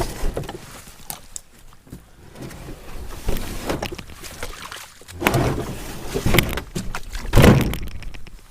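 Wenonah Prism solo canoe being paddled: irregular paddle splashes and knocks on the hull. The loudest of them come about five to eight seconds in.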